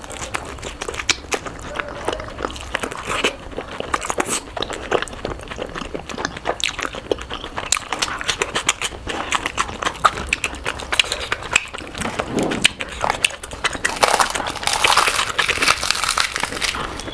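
Close-miked mukbang eating sounds played at double speed: a rapid, irregular run of crunchy bites and chewing, growing denser and noisier a few seconds before the end.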